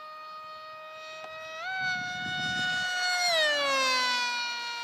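Radio-controlled foam speed airplane's motor and propeller whining in a fly-by pass. The pitch steps up about one and a half seconds in, then slides down as the sound peaks and fades while the plane goes past.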